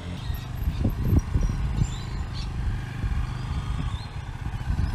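Yamaha XT250's single-cylinder four-stroke engine running at low revs as the trail bike is ridden slowly through tight turns.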